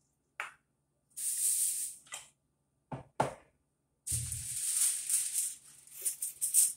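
Rustling and crinkling of wrapping material being handled, in two stretches, with a dull bump about four seconds in.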